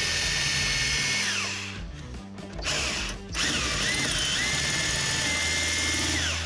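Small high-speed power tool with a gold-coloured bit cutting into rusty sheet-steel plenum panel, its whine dipping and recovering as it bites. It winds down about a second and a half in, gives a short burst, then runs again from about three seconds in and winds down at the end.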